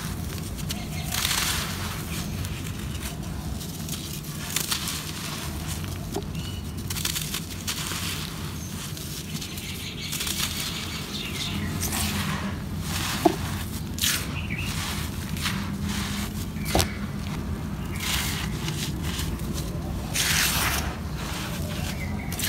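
Dry red dirt crumbling and pouring through bare hands, and fingers raking loose powdery soil. It comes as a series of gritty swishes at irregular intervals, with a couple of sharp little clicks, over a low steady rumble.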